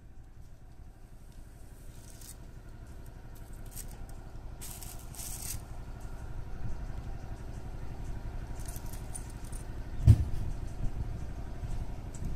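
Low, steady engine-like rumble that slowly grows louder, with short rustles as nylon fishing line and plastic hook packets are handled. A single thump about ten seconds in.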